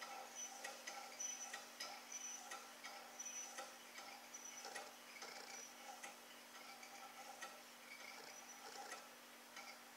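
Small hot-water-powered Stirling engine turning over slowly, its flywheel and piston linkage giving a faint squeak and tick about once a second. The squeaking is from dry, unlubricated moving parts, which the owner says need lubricating.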